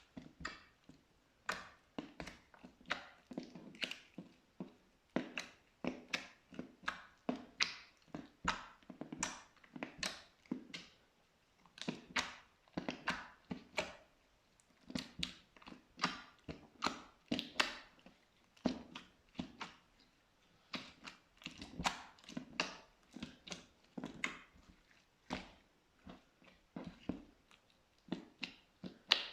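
Slime being pressed and squeezed by hand, giving a continuous irregular run of short, sharp pops, about two to three a second.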